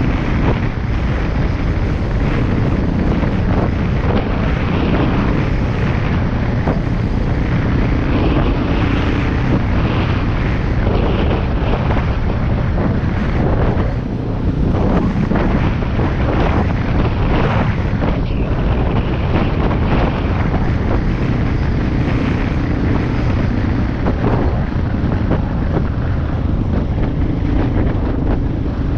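A vehicle driving off-road: steady engine and road noise, with wind buffeting the microphone.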